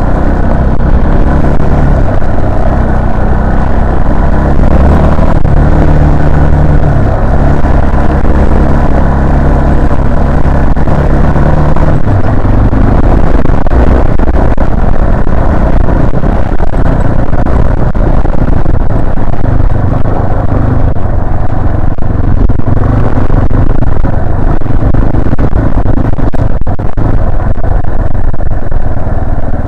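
Yamaha Serow 250's carbureted single-cylinder four-stroke engine running steadily under way, its engine note shifting about twelve seconds in.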